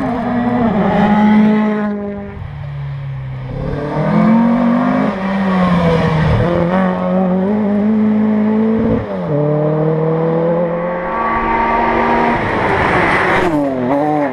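Rally cars at speed on a special stage, engines revving hard. The pitch climbs and then drops sharply at each gearshift, several times over, with a loud close pass near the end.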